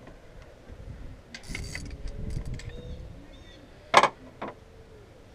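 Metal knocks and clanks of an alternator and its bolts being worked into place in a car's engine bay, loudest a single sharp clank about four seconds in, with a lighter one half a second later.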